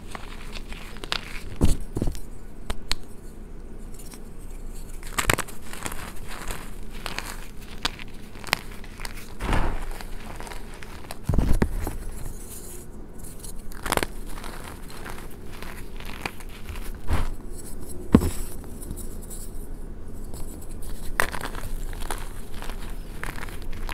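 Hands crushing and crumbling reformed gym chalk over a tub of chalk powder: a steady dry crunching and crackling, with sharper, louder cracks every few seconds as pieces break apart.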